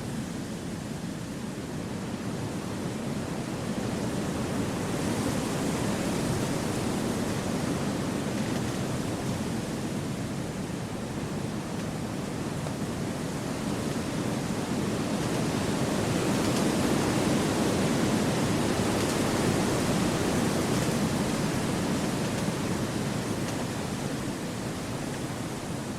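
Wind blowing through forest trees: a steady rushing that swells and eases, louder around a quarter of the way in and loudest about two-thirds of the way through.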